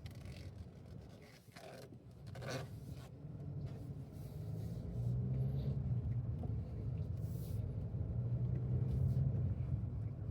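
Volkswagen Virtus GT's 1.5 TSI engine and exhaust droning steadily as the car drives, getting louder about halfway through. There are a couple of brief scraping sounds about two seconds in.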